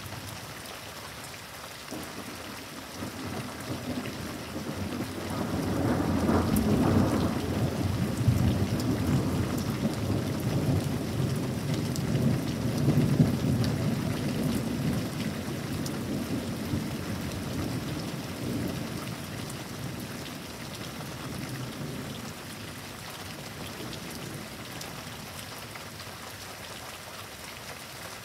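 Steady rain falling while a long roll of thunder builds about five seconds in, rumbles low for around fifteen seconds, and dies away.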